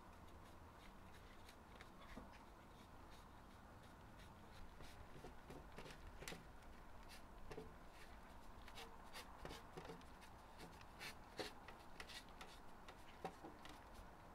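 Cats eating from a foil tray: faint, irregular clicks of licking and chewing, coming more often from about four seconds in.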